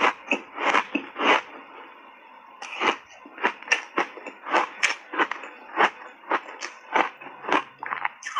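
Ice crunching between the teeth as a mouthful of purple block ice coated in matcha powder is chewed, close to a clip-on microphone. Four sharp crunches, a brief pause about two seconds in, then a steady run of about three crunches a second.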